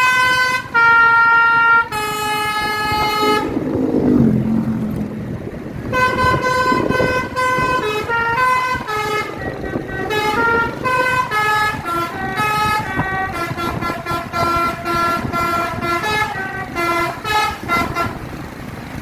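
Bus's Basuri multi-tone musical air horn ('telolet') playing a sholawat tune, a melody of held horn notes stepping up and down. About four seconds in, a lower tone slides downward before the melody resumes.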